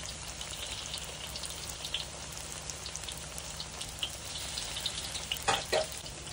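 Battered slices of long eggplant deep-frying in hot oil in a wok: a steady sizzle with many small crackling pops. There are a couple of sharper knocks near the end.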